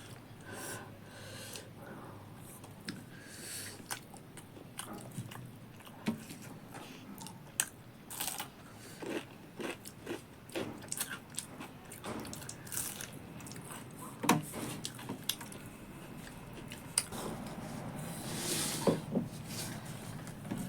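A person biting and chewing crunchy food close to the microphone, with many short, crisp crunches scattered irregularly through the chewing.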